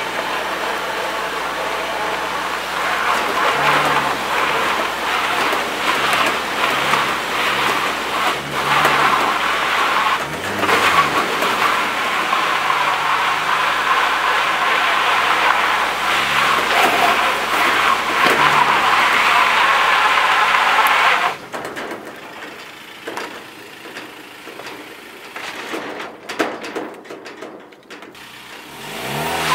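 Ford Transit diesel engine held at high revs while the dual rear tyres spin in mud, with no traction. Tyre and mud spray noise rises and falls with the throttle. The racket cuts off suddenly about two-thirds of the way through, leaving the engine running much more quietly.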